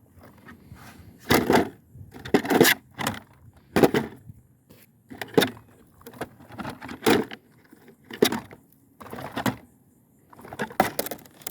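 A toy-grade RC car's plastic chassis is knocked and shaken to get sand out of it, giving a dozen or so sharp knocks at irregular intervals, roughly one a second, with light rattling between.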